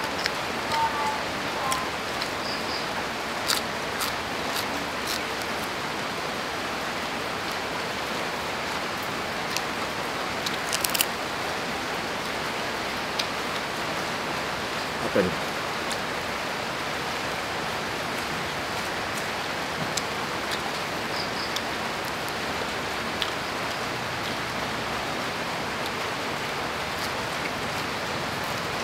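Steady rain falling, an even hiss throughout, with a few short sharp clicks scattered through it.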